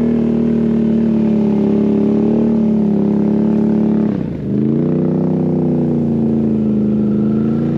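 Can-Am Outlander Max XT 850 ATV on Apache 360 LT tracks, its V-twin engine running steadily under load. About four seconds in the throttle eases off and the pitch dips briefly, then it picks back up to a steady pull.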